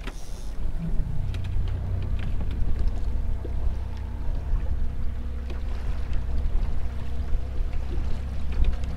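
Water slapping against an aluminium open boat's hull and wind on the microphone, over a steady low hum, with scattered small knocks.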